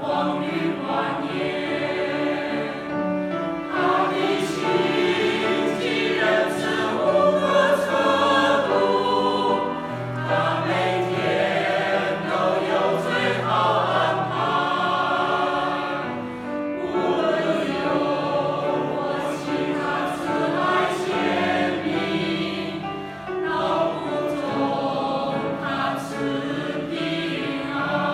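A choir singing a Christian praise song, many voices together in sustained chords that change every second or so.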